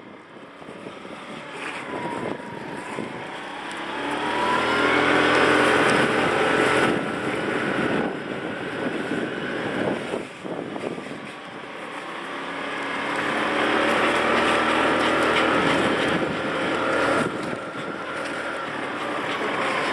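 Motorbike engine running at low road speed, its note climbing twice as it speeds up, about four seconds in and again past the middle.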